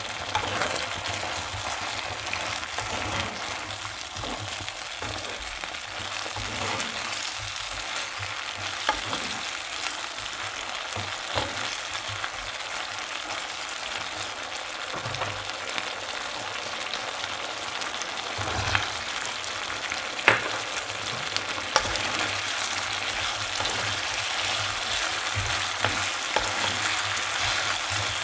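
Chicken pieces sizzling in soy sauce in a nonstick frying pan, a steady hiss, stirred with a wooden spatula that gives a few sharp taps against the pan, the loudest about twenty seconds in.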